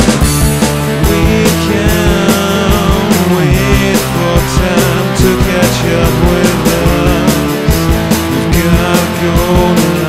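Rock band playing a song with electric guitar and drums to a steady beat.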